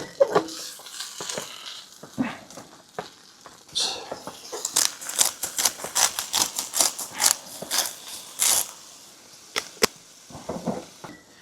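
A cooking utensil scraping and stirring food in a frying pan: a few scattered clatters, then a run of quick, sharp scraping strokes at about four a second through the middle, stopping near the end.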